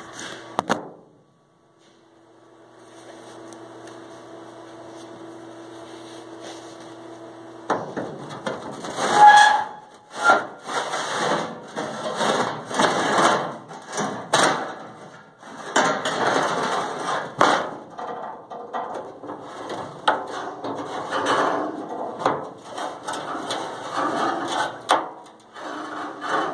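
A steady low machine hum for several seconds. Then, from about eight seconds in, irregular scraping, rubbing and knocking of metal as the freshly plasma-cut steel piece is handled and worked loose from the sheet.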